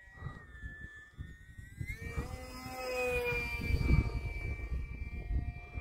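E-flite UMX Timber X's small electric motor and propeller whining in flight overhead, rising in pitch and getting louder about two seconds in. A gusty low rumble of wind on the microphone sits underneath.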